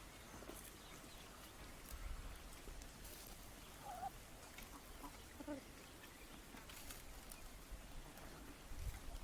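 Chickens making a few faint, short calls, about four and five and a half seconds in, with scattered soft clicks between them.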